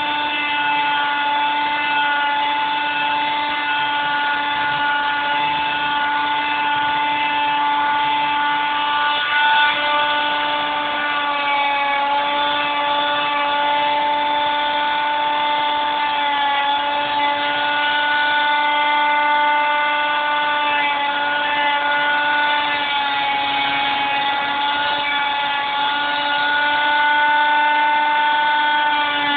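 Electric grinder running steadily with a high whine, grinding down knots and edges on a dried wooden tree limb; its pitch sags slightly here and there as it bears on the wood.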